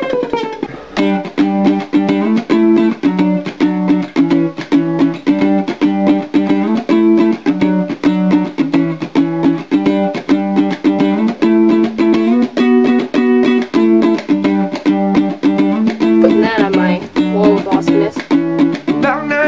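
Background music: an upbeat song on strummed plucked strings, with a quick, steady beat.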